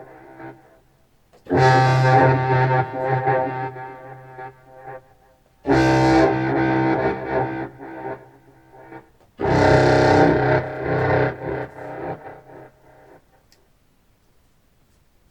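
Contrabass clarinet played through an effects pedalboard with a Walrus Fable granular delay set to large grains for a delay-like sound, heard through studio speakers. Three distorted notes start sharply about a second and a half, six and nine and a half seconds in, and each trails off in delay repeats over a few seconds. It falls almost quiet near the end.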